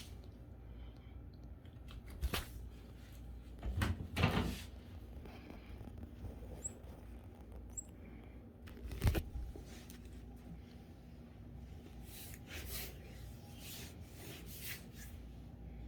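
Scattered knocks and rustles of things being handled and moved about, the loudest about four and nine seconds in, with lighter clicks near the end.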